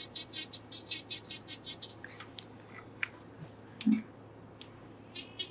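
Serio electric nail drill's bit grinding against a toenail's sidewall in quick strokes, about six a second, for the first two seconds, then a few small ticks. It is buffing away callus and dead skin beside the nail.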